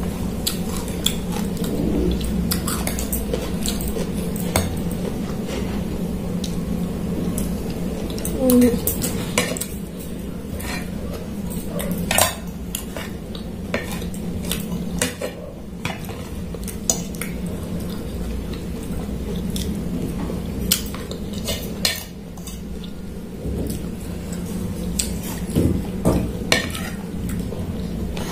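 Metal spoon and fork clinking and scraping against a ceramic plate during eating, in many short, irregular clicks, over a steady low hum.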